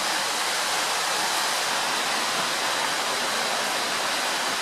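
A steady, even hiss with no change in level throughout.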